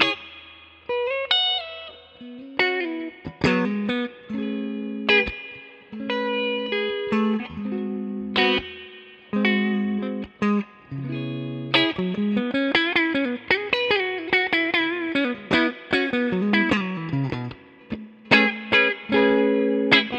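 Epiphone Les Paul 100 electric guitar played through an amplifier: a mix of picked chords and single-note lines, with a long fast run of notes climbing and falling in the second half.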